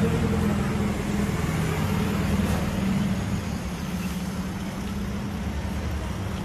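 Road traffic with a motor vehicle engine running close by: a steady low hum over the general noise of the street.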